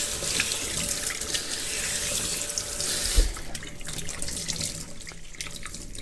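Kitchen faucet running into the sink while a cloth is rinsed under the stream. The water shuts off a little over three seconds in with a low thump, leaving scattered small clicks and splashes.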